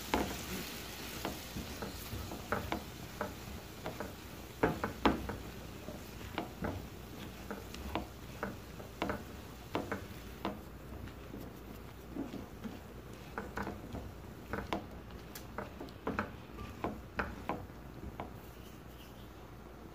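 A spatula stirring sliced cucumber in a frying pan, scraping and knocking against the pan at an uneven pace of about one or two knocks a second, over a faint sizzle.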